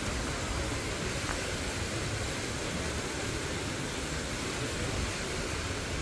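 Steady beach ambience: wind rumbling on the microphone over the even hiss of small waves washing along the shore.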